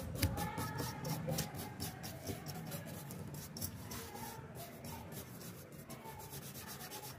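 Toothbrush bristles scrubbing the dirty blades and frame of an old PC cooling fan in short, quickly repeated strokes.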